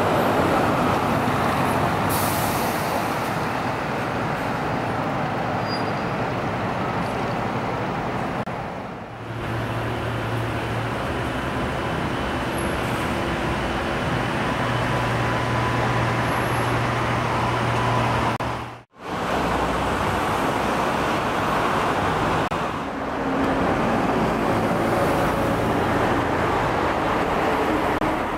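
City street traffic noise: a steady wash of road noise from passing vehicles. A low steady hum joins in the middle for several seconds.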